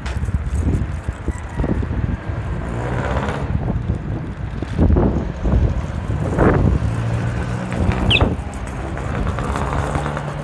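Motorcycle engine running steadily while riding along a street, with wind buffeting the microphone in gusts. A brief high chirp sounds about eight seconds in.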